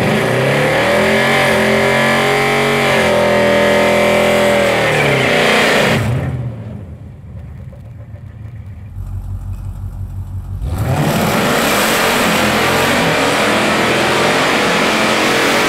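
Supercharged 6.2-litre Hellcat Hemi V8 engines revving hard, the pitch climbing and falling over several seconds. About six seconds in it drops to a quieter low rumble, then rises again to loud full-throttle running near eleven seconds.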